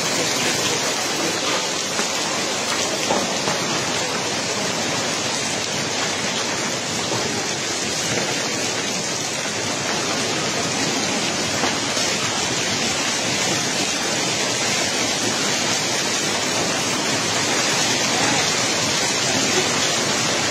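Hail falling steadily on a paved street, a dense, even patter and hiss with no let-up.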